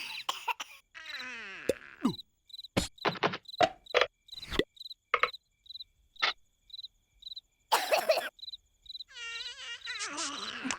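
Cartoon soundtrack: crickets chirping steadily, about two chirps a second, under short comic sound effects. Near the end comes a wordless, wavering cartoon voice, like a groan.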